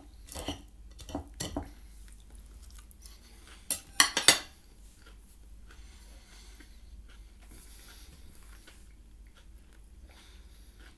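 Cutlery clinking and scraping on a plate. There are a few sharp clicks in the first two seconds and a loud cluster of clatters about four seconds in, followed by faint chewing.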